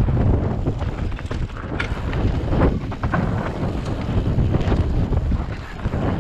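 Wind buffeting the mountain bike's camera microphone over the rumble of tyres on a dirt trail, with scattered knocks and rattles from the bike as it rides over bumps, a few sharper ones about two and three seconds in.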